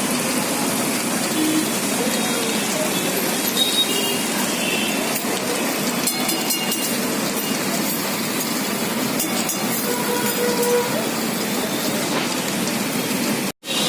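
Heavy rain falling steadily as a dense, even hiss, with a sudden brief cut-out near the end.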